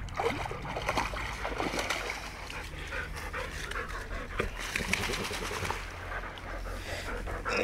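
A golden retriever splashing out of the river shallows with a stick in its mouth and pushing through the wet bankside grass, water dripping and rustling.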